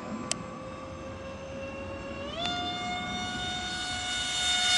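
Twin 70 mm electric ducted fans (E-flite V-15 with BL15 motors) of an RC Su-34 model jet whining steadily in flight. About two and a half seconds in, the whine steps up quickly in pitch, then holds and grows louder toward the end. A single sharp click comes about a third of a second in.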